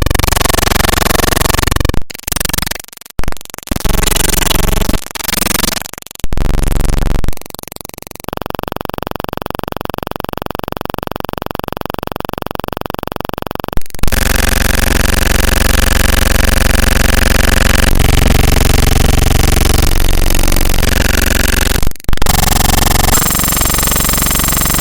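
Digital glitch sound effects: harsh bursts of distorted noise chopped by abrupt cuts and dropouts. From about eight seconds in comes a steady buzzing tone with a fast, even stutter. At about fourteen seconds this gives way to dense noise again, broken by a brief dropout near the end.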